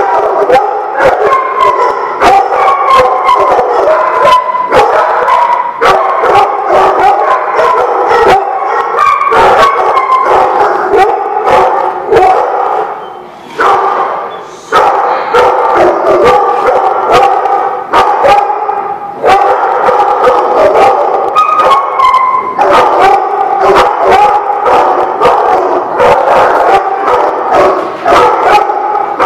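Several dogs barking, yipping and howling at once, a continuous din of overlapping dog voices punctuated by many sharp barks, with a brief lull about halfway through.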